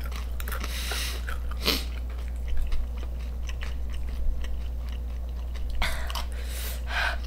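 Close-miked chewing of crunchy ghost pepper tortilla chips: many small crisp crunches with the mouth working on the chip, with a few louder noisy swishes in between.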